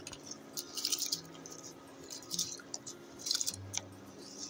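Fresh sugarcane juice boiling in a steel pot, with wet squishing and bubbling as soaked rice is tipped in and stirred with a steel spoon; the crackly bubbling comes in irregular bursts.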